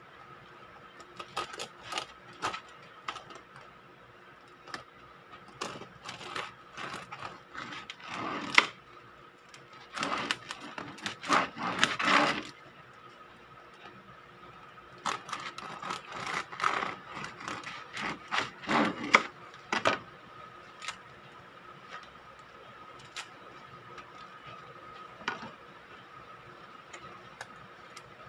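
Serrated bread knife sawing through a crusty sourdough loaf on a wooden board: irregular bursts of scraping back-and-forth strokes, thinning to a few scattered light clicks in the last third.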